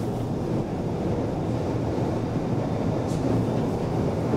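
1977 KONE inclined elevator car travelling along its sloping shaft: a steady low rumble of the running car.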